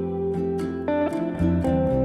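Background music: guitar playing plucked, strummed chords.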